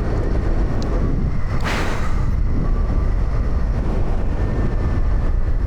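Royal Enfield Himalayan 450 motorcycle riding on a paved road: a steady, low rumble of engine, tyres and wind on the rider's camera microphone, with a brief rushing swell about two seconds in.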